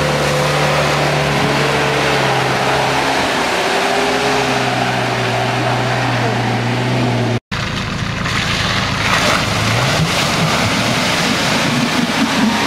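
Off-road 4x4 engines working hard through deep mud, with mud and water splashing. One engine is held at high revs, its pitch sagging slowly under the load. After a sudden cut about seven and a half seconds in, another engine revs up as it ploughs on.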